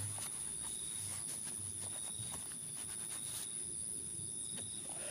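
Night insect chorus of crickets trilling steadily, a continuous high-pitched ring with a second, lower steady tone beneath it.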